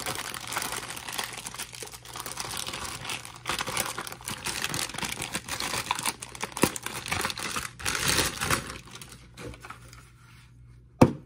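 Clear plastic packaging bag crinkling and crackling as it is handled and worked open, dying down about nine seconds in. One sharp knock near the end.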